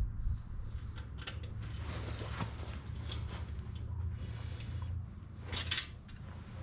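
Creaks and clicks of metal parts moving over a steady low hum, which stops about five seconds in, with a cluster of creaks near the end.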